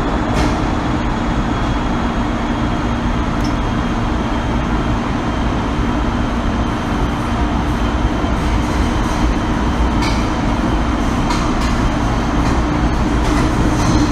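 MTR M-Train electric multiple unit running at steady speed, heard from inside the passenger car: continuous rumble of wheels on rail with a steady hum, and a few faint clicks from the track.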